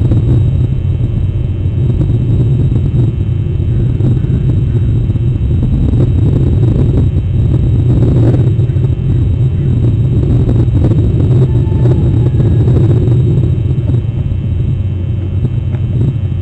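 A steady, loud low rumble with a slightly wavering level.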